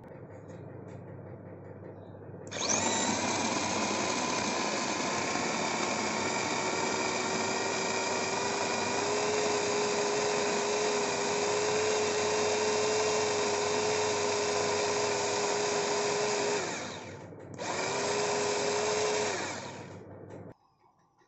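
Mini USB rechargeable electric chopper with a three-blade stainless steel blade chopping tomatoes into pulp: its small motor starts up and runs steadily with a whine for about fourteen seconds, stops for a moment, then runs again for about two seconds before cutting off.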